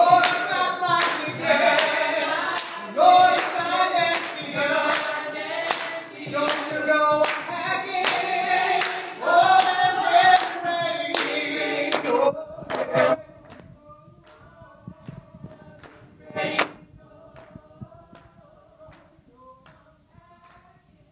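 Mixed vocal group of men and women singing together into microphones, with steady hand claps on the beat. About twelve seconds in the singing drops to a soft level, with a few scattered claps and one sharp clap a few seconds later.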